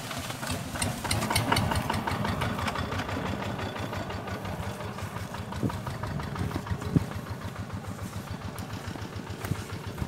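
Small farm tractor engine pulling a trailer cart, running with an even chugging that grows fainter over the first few seconds. A single sharp knock comes about two-thirds of the way through.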